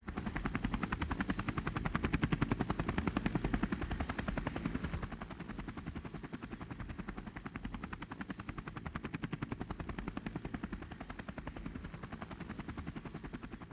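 Helicopter rotor sound effect: a fast, even chopping, louder in the first few seconds and a little softer after about five seconds.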